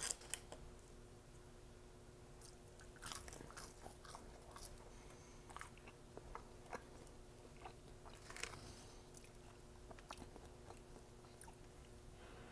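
Quiet chewing and biting of fast food, with scattered soft crunches and mouth clicks every second or so.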